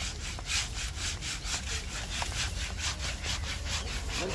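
Steady rhythmic scraping, about four strokes a second, like something being rubbed or sawn back and forth.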